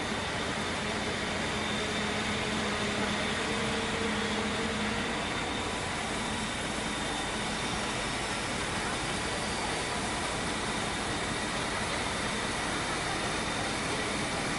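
Steam locomotive rolling slowly into a station along the platform: a steady mix of rumble and leaking steam hiss, with no separate chuffs.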